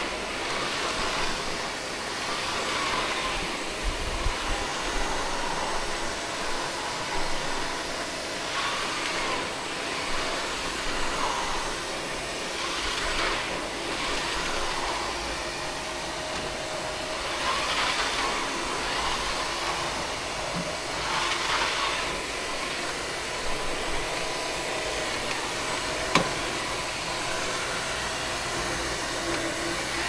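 Roborock Flexi Pro cordless wet-dry floor washer running, a steady motor hum whose hiss swells and eases every few seconds. A single sharp click comes late on.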